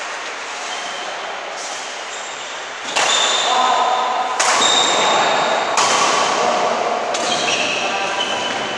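Badminton rackets striking a shuttlecock in a rally: a series of sharp, ringing hits about a second and a half apart, echoing in a large hall.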